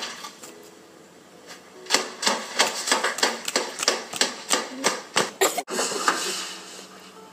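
A plastic toy pony figure knocked repeatedly against a pile of paper scraps on a table: a quick run of sharp taps, about four a second. The taps start about two seconds in and stop about a second and a half before the end.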